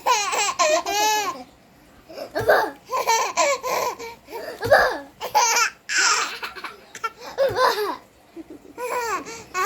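Young child laughing hard in five high-pitched bouts with short breaths between them.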